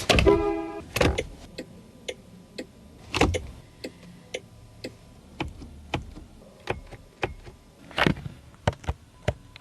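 A series of irregular sharp clicks and knocks, a few of them louder, with a short pitched chirp just after the start.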